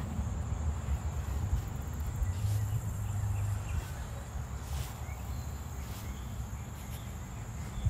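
Outdoor summer ambience: a steady high-pitched insect trill over a low wind rumble on the microphone, with a few faint ticks.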